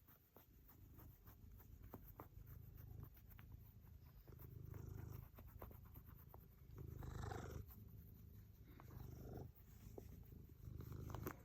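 A cat purring faintly as it is brushed, in low swells about every two seconds.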